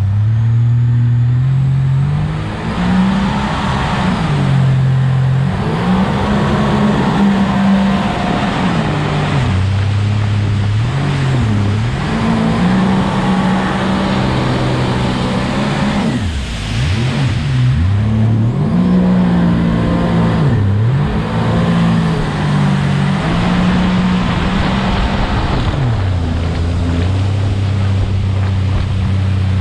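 A 250 hp jet boat's engine running at speed, its pitch dipping and climbing again several times as the revs change, over the steady rush of water and spray from the hull and jet wake.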